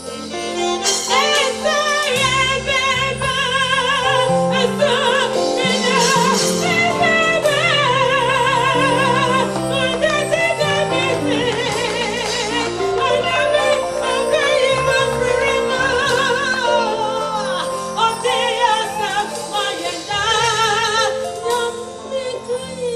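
A woman singing a gospel song with wide vibrato over live backing music.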